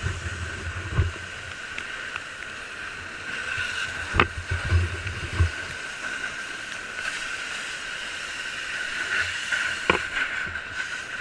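Steady rushing hiss of a fire hose spraying water, with a constant high whistling tone running through it. Low bumps are heard in the first second and again about four to five seconds in, and there are two sharp knocks, about four and ten seconds in.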